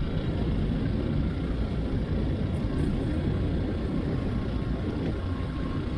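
Portable generator running steadily, charging a trolling-motor battery.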